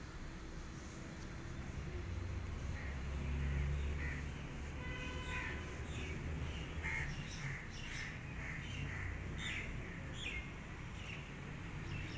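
A run of short animal calls, about two a second, over a low rumble.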